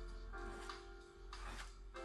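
Soft instrumental background music with long held notes.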